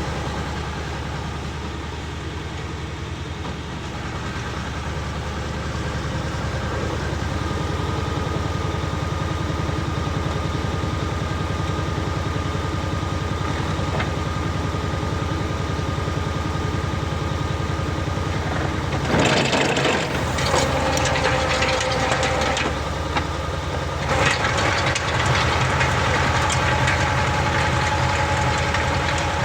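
Walk-behind rotary tiller's small engine running steadily under load as its tines work the soil, with louder rattling clatter starting about two-thirds of the way in.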